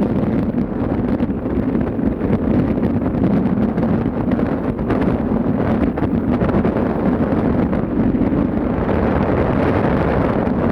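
Wind buffeting the microphone over the steady rumble of a ship under way.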